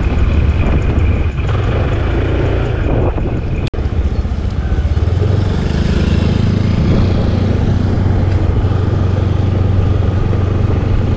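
Small motor scooter running steadily while being ridden, its engine hum mixed with road and wind noise. The sound cuts out for an instant about a third of the way through.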